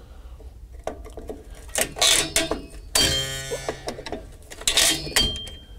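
Steel brake spring tool levering a drum brake return spring off its anchor pin: scattered metallic clicks and scrapes against the shoes and backing plate, with a brief metallic squeal about three seconds in and a short ring near the end.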